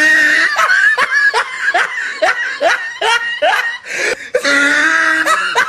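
A person laughing loudly in a quick run of 'ha' bursts, about two to three a second. The laughter breaks off briefly about four seconds in, then starts again.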